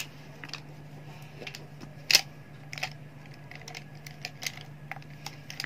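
Hands handling an open workbook and crayons on a table: scattered light taps and clicks, one louder click about two seconds in, over a steady low hum.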